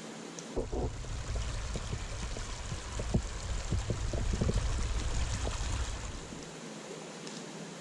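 A small brook's water running steadily. From just under a second in until about six and a half seconds, a heavier low rumble with scattered short gurgling pops rises over it.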